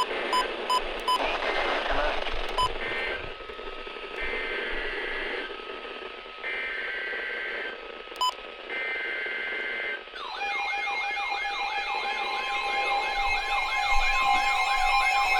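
Emergency Alert System SAME header: three harsh digital data bursts, each about a second long with a second's gap between them, after a few seconds of radio hiss with short beeps. About ten seconds in, the two-tone EAS attention signal starts, a steady pair of tones with a warbling, siren-like tone over it, which marks the start of a new alert.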